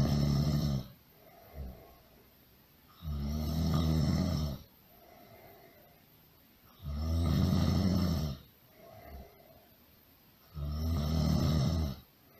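A person snoring loudly in a steady rhythm: a long snore of about a second and a half every three and a half to four seconds, with a short, softer breath between each. One snore is ending at the start, and three more follow.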